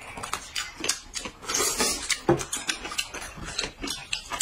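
Close-up eating sounds at a table: chopsticks clicking and knocking against porcelain bowls, with a noisy slurp of hot and sour sweet-potato noodles about a second and a half in, and chewing.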